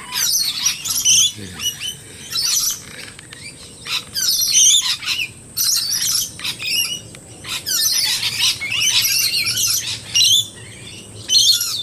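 Mixed flock of wild Australian birds calling, with chattering and squawking calls in bursts of a second or so, one after another with short gaps.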